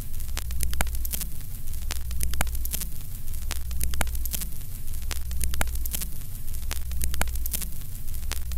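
Old-film countdown sound effect: a steady low hum under static crackle and pops, with a sharper click recurring a little more often than once a second, like a film projector running.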